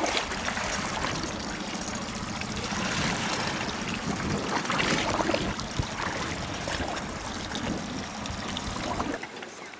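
Water splashing and trickling against the hull of a small fishing boat, a steady noisy wash that drops quieter near the end.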